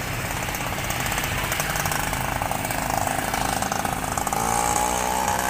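An engine running with a rapid, even pulse; a steadier droning engine note comes in about four seconds in.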